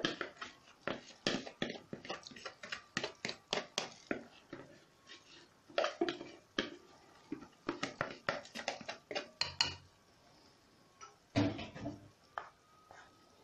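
A spoon knocking and scraping against a nonstick cooking pot as rice is stirred into boiling water: a rapid, irregular run of clicks for about ten seconds, then a few more knocks near the end.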